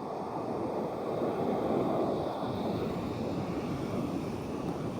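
Ocean surf washing up the beach: a steady rush that swells about two seconds in and then eases.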